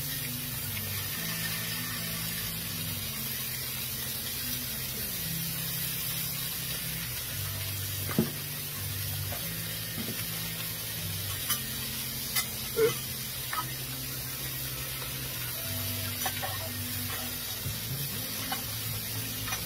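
Sliced flank steak sizzling steadily on a hot Blackstone griddle. About eight seconds in, a few sharp clinks and taps of metal utensils cut through, the loudest near the middle.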